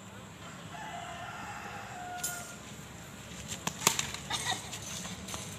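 A cricket bat striking the ball with a sharp crack about four seconds in, with a few smaller knocks around it. Before that, a faint drawn-out call.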